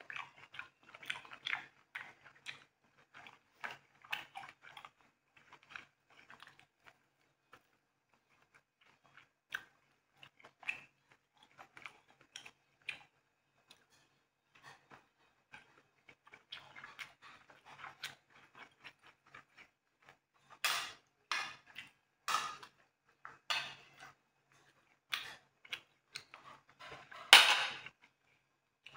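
Close-miked eating sounds: sticky rice pulled apart by hand and chewed, a run of soft, irregular smacks and crackles that grow louder and denser in the last third, with the loudest one just before the end.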